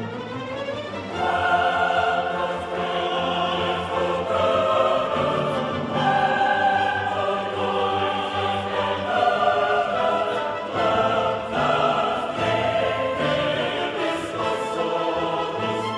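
Choral music with sung voices and orchestra, slow held notes changing every second or two, in an operatic style.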